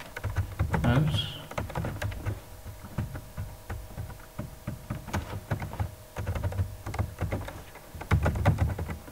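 Computer keyboard typing: irregular clicks of keystrokes coming in uneven runs with short pauses between them.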